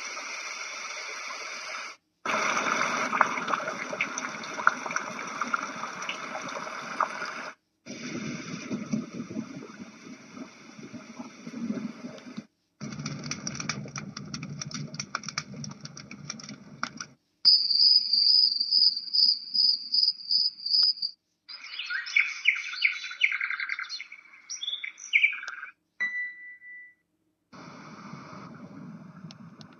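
Yogasleep Duet white noise machine playing a series of its built-in sound samples, switching every few seconds with a brief silence between each. The samples go from steady noise to crackly noise full of clicks, then a high steady pulsing trill, then bird chirps, and back to steady noise near the end.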